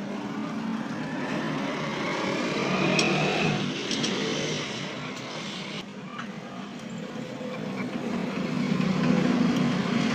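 Engine noise of passing road traffic, swelling about three seconds in and again near the end, with a few light metallic clicks from parts being handled.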